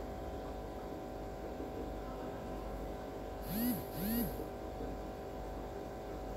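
Steady hum over a sauce bubbling in a pan. Two short voice-like calls, each rising then falling in pitch, stand out about three and a half and four seconds in.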